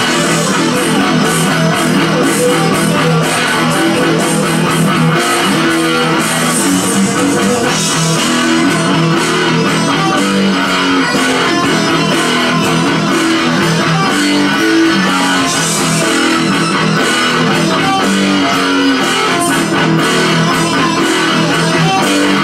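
Black Washburn electric guitar playing a rock instrumental: a continuous run of short picked notes and riffs.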